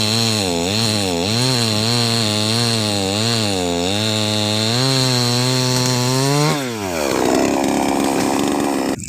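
Chainsaw engine running at high speed while cutting, its pitch rising and falling repeatedly. About six and a half seconds in, the engine speed drops sharply and the sound settles to a lower, steadier tone.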